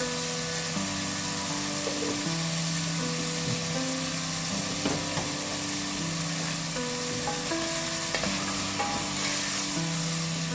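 Food sizzling as it fries in oil in a pan, with an occasional tap or scrape of a utensil stirring it, under soft background music with long held notes.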